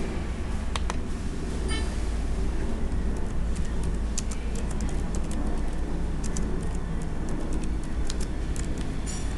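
Computer keyboard typing: a run of quick key clicks starting about three seconds in, over a steady low rumble, with a brief high chirp about two seconds in.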